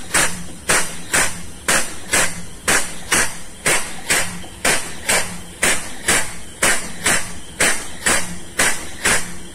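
Air-operated double diaphragm pump cycling steadily, each stroke a sharp puff of exhaust air, about two a second. It is drawing the last crude palm oil out of a cargo tank.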